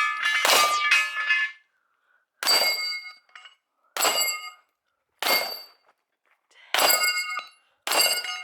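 Pistol shots striking steel targets, each hit followed by the ring of the steel plate. There are about seven, spaced a second or so apart.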